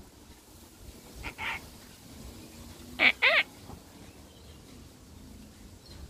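Sulphur-crested cockatoo calling: a soft double call about a second in, then two short, loud calls a third of a second apart near the middle.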